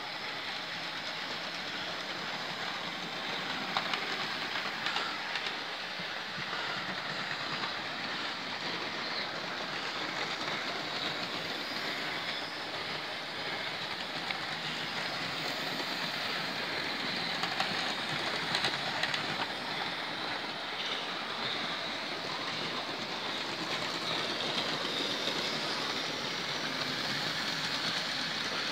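Several Hornby OO gauge model trains running around a layout: a steady whirr and rattle of small motors and wheels on the rails, with a few faint clicks over the track.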